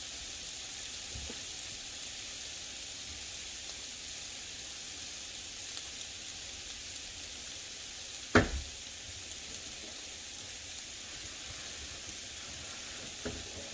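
Chicken pieces frying in oil in a pan, a steady sizzle, with one sharp knock about eight seconds in.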